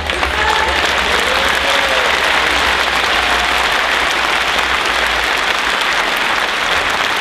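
Large audience applauding, with some cheering voices early on.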